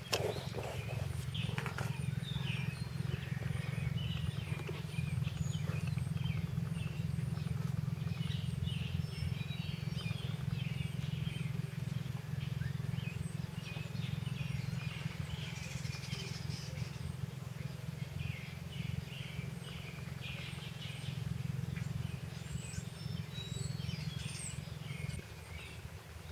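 Outdoor ambience: a steady low rumble with many faint, scattered bird chirps above it.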